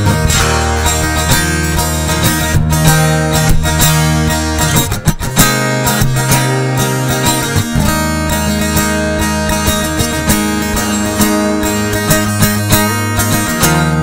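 Solo Eko Mia D dreadnought acoustic guitar played fingerstyle in a new-age style: picked melody notes ring over held bass notes, with a short break in the bass and a sharp strike about five seconds in.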